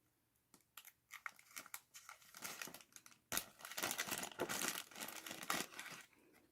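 Packaging crinkling as it is handled: a few light scattered crackles at first, then a denser run of crinkling from about three seconds in that dies away near the end.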